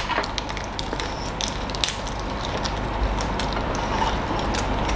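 Close-miked chewing of crispy bánh xèo (Vietnamese crêpe) wrapped in fresh lettuce and herbs: many small crunches and crackles.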